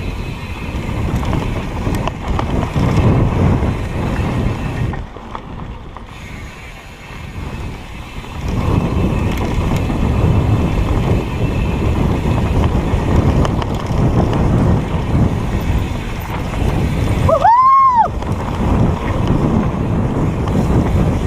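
Mountain bike ride on a dirt trail: wind buffeting the microphone over rumbling, rattling tyre and frame noise, which dips for a few seconds around the middle. Near the end comes a short high squeal that rises and falls.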